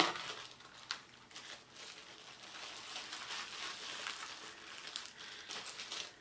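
Packaging rustling and crinkling as it is handled, a steady crackle with a sharp click at the start and another about a second in.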